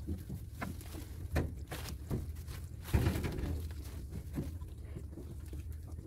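Scattered knocks and rustles of hands pulling jammed crop material out of a Malkit combine harvester's threshing drum, the loudest knock about three seconds in, over a low steady rumble.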